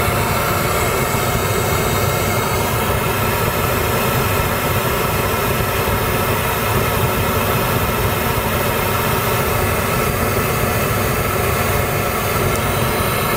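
Pink noise test signal played steadily through a Volvo's 19-speaker factory sound system in its driver-optimised setting, heard inside the car's cabin as a constant, even hiss and rumble. It is being measured to show the cabin's frequency response, which still has a few bumps and dips.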